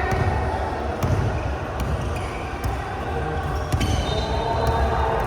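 A basketball bouncing on the court during play, a run of repeated low thuds with a few sharp squeaks or clicks.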